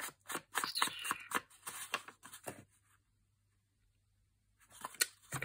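Ink dauber dabbed and rubbed repeatedly against the edge of a torn paper book page, with the paper rustling in the hands. The dabbing stops about two and a half seconds in, and a little paper handling follows near the end.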